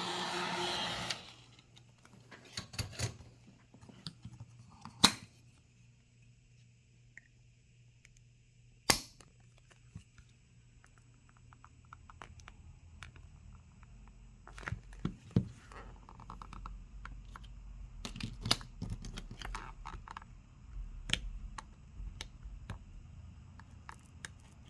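Heat gun blowing hot air, switched off about a second in. Then scattered small clicks and taps of hand tools on a phone, with two sharper clicks standing out.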